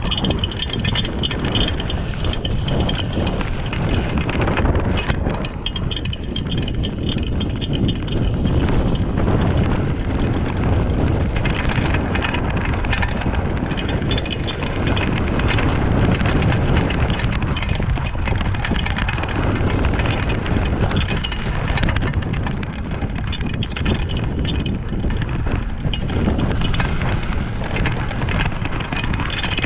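Downhill mountain bike being ridden over rough ground: tyres rumbling on dirt and the bike's chain and frame clattering with constant clicks and knocks, with heavy wind on the microphone.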